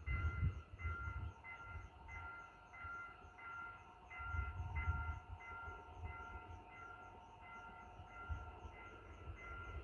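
Mugunghwa-ho passenger train approaching in the distance: a faint low rumble that swells and fades. Over it, a steady high ding repeats about twice a second.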